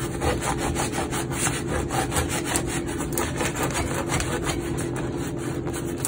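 Serrated bread knife sawing lengthwise through a crusty French baguette: quick, even back-and-forth strokes rasping through the crust, several a second.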